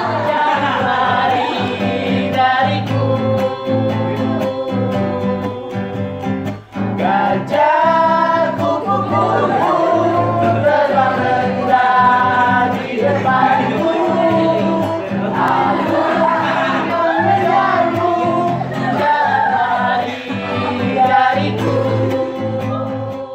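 A song sung by several voices with acoustic guitar accompaniment.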